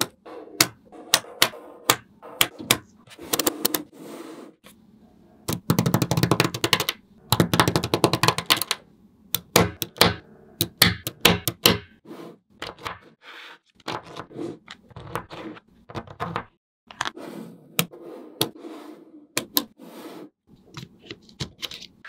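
Small metal magnetic balls clicking and clattering as they are snapped together and pressed into place, mostly single sharp clicks, with two dense runs of rapid clicking about six and eight seconds in.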